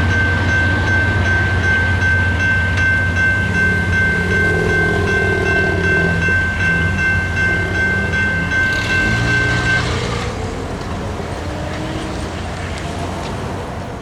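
Railroad crossing signal bell ringing steadily over the low rumble of a freight train moving away. The bell stops suddenly about ten seconds in as the crossing signals deactivate after the train has cleared.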